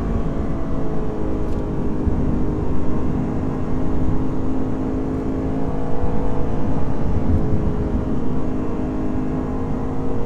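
Lexus IS500 F Sport Performance's naturally aspirated 5.0-litre V8 running at a nearly steady engine speed, its pitch holding level with only slight drift, over a dense low road rumble.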